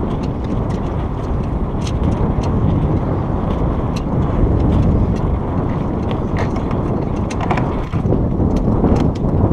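Steady wind rumble on the microphone of a sailboat under sail, with scattered light clicks and ticks.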